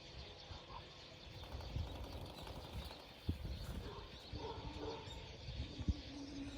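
Faint outdoor background with a low rumble, two soft knocks, and a few short, faint pitched calls in the second half.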